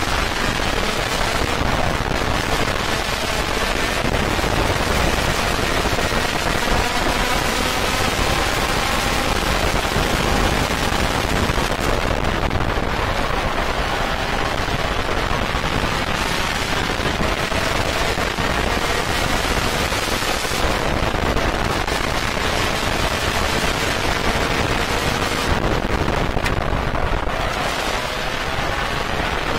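Racing kart's two-stroke engine heard onboard at speed, its pitch gliding up as it accelerates and dropping as the driver backs off for corners, a few times over, with a dense rapid rattle of exhaust pulses and wind rush on the microphone.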